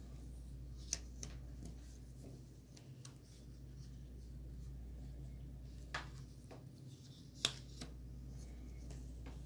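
Cardboard jigsaw puzzle pieces being handled, pressed together and set down on a wooden table: a few light clicks and taps, the sharpest about six and seven and a half seconds in, over a steady low hum.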